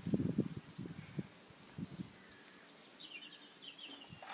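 Low, irregular thumps and rustling handling noise through the first second or so, then a bird chirping a quick run of high notes about three seconds in.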